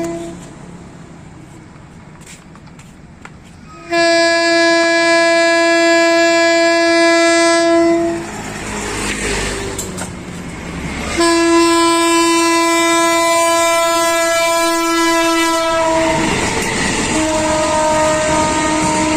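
Diesel locomotive air horn, the CC 202-type horn fitted to a CC 201 locomotive, sounding two long steady blasts of about four seconds each, a few seconds apart. Near the end the passing train's rushing noise and wheel clatter take over, with a fainter horn tone in it.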